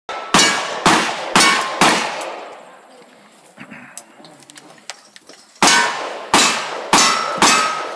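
Gunshots from cowboy action shooting guns: four in quick succession about half a second apart, then after a pause of about three and a half seconds four more. Some shots leave a short metallic ring, like steel targets being hit.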